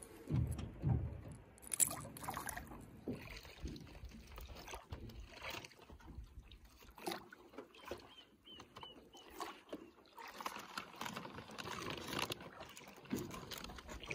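Sounds on a small fishing boat on a river: water against the hull, with scattered knocks and clicks of gear being handled.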